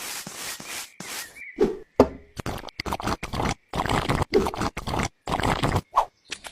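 A rapid string of short scraping and knocking sounds, each burst cut off abruptly by a moment of silence, with a few brief squeaks among them.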